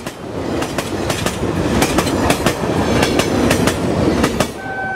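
Continuous rumbling with irregular sharp clattering clicks, then a steady pitched tone, like a horn or whistle, starting near the end.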